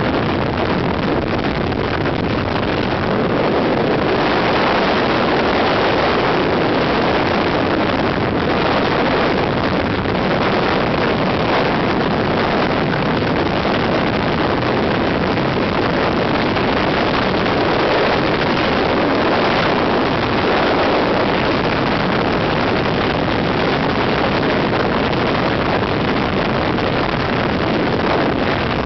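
Steady rush of wind over the microphone mixed with tyre and road noise, as heard from a camera mounted on the outside of a moving car beside its front wheel.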